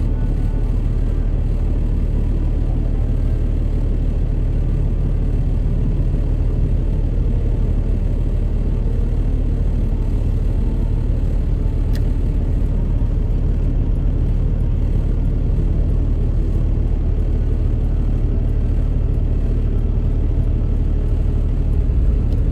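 Steady low rumble of city street traffic, with vehicle engines idling and running.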